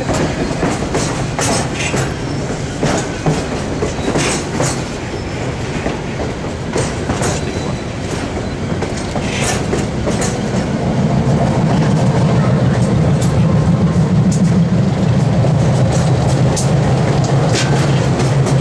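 White Pass & Yukon Route narrow-gauge passenger train running, heard from aboard: a steady rumble with scattered clicks and clacks of the wheels on the rails. The rumble grows louder about ten seconds in.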